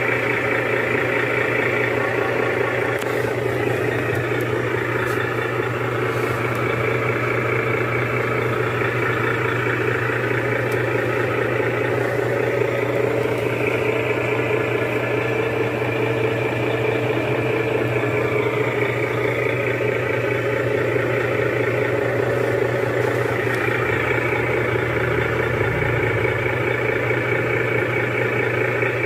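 Engine idling sound effect played steadily from a DIY RC car's add-on sound module, a recorded car engine held at idle.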